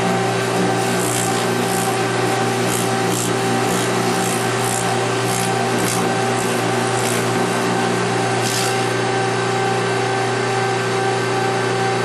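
Jeweler's polishing motor running steadily while a 1500-grit abrasive rubs against the inside of a platinum ring, with irregular swishing scrapes over the constant motor hum.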